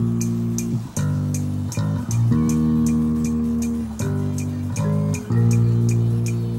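Marching band playing: sustained low brass chords that change every second or so, over a steady quick ticking beat.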